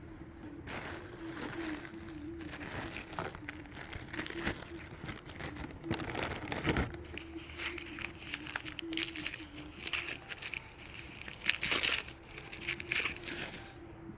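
Packing wrap crinkling and rustling as it is handled, with scattered clicks and a loud burst of crinkling about twelve seconds in, over a steady low hum.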